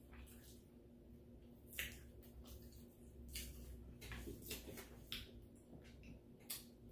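Faint eating sounds: fried chicken being pulled apart by hand and eaten, a few soft scattered clicks and crackles over a low steady hum.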